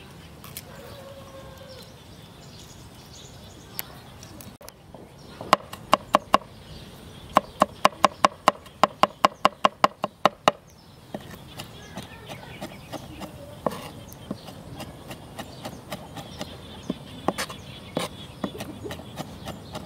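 Cleaver chopping peeled garlic cloves on a wooden cutting board: a quick run of sharp knocks, about four a second, from about five seconds in to about ten seconds in, then lighter, scattered taps as the garlic is minced.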